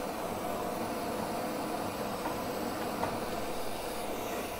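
Steady hissing rush of an oxy-fuel torch flame burning while it heats a thick cast part to cherry red, with a couple of faint taps.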